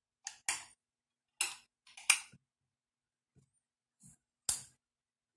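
A handful of short, sharp clicks and knocks spaced unevenly over a few seconds, with quiet between them. They are handling sounds as the room lights are being switched off.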